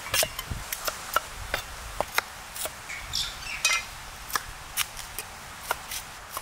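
A cleaver chopping cauliflower florets on a wooden log chopping block: sharp knocks in an irregular rhythm, about two or three a second.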